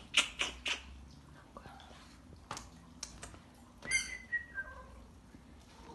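A cat's short, high-pitched chirp about four seconds in, sliding down in pitch, after a few light clicks in the first second.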